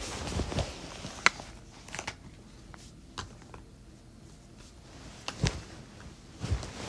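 Handling noise close to a phone's microphone: soft rustling with scattered sharp clicks and knocks, the sharpest a little over a second in and a few more thumps near the end.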